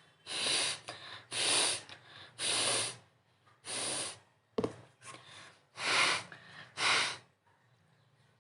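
A person blowing hard through the nose again and again: about six loud, forceful blasts of air, each roughly half a second long, with weaker huffs between them. There is one short knock near the middle.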